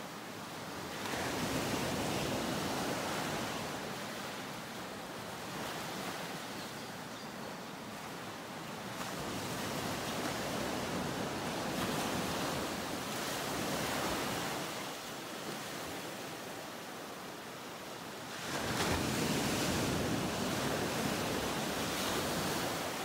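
Ocean surf washing in and out: a steady rush of waves that swells and eases slowly. It rises about a second in and is loudest in a surge near the end.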